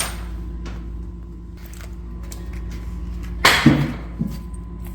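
Engine parts and tools handled on the workbench during a teardown: a click at the start, then a brief loud clatter about three and a half seconds in, over a steady workshop hum.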